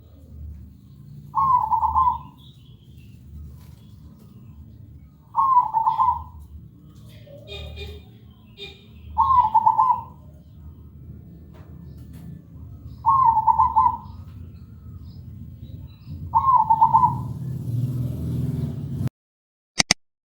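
Zebra dove (perkutut) cooing: five short rolling coos about four seconds apart, over a low steady rumble. The sound cuts off abruptly near the end, followed by a brief click.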